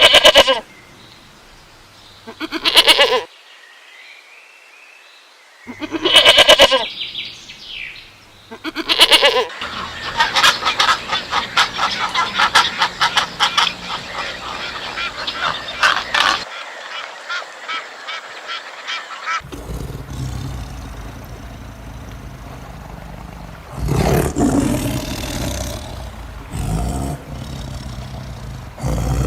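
A string of different animal calls cut together. Several separate loud calls come in the first ten seconds, then a stretch of rapid repeated calling, and later a noisier passage with another loud call.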